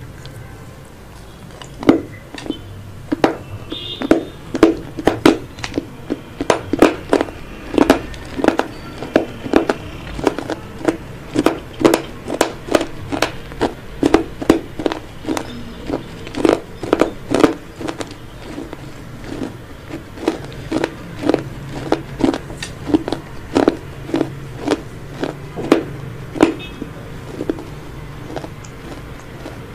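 Close-miked crunching of crisp chips being bitten and chewed, with sharp crunches coming about one to two a second.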